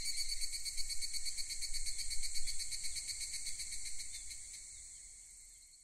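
Crickets chirping: a steady, high, fast-pulsing trill that fades out over the last couple of seconds.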